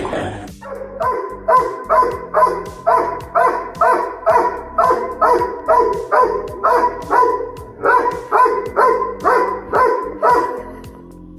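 A dog barking steadily, about two barks a second, over background music with a beat. The barking stops shortly before the end.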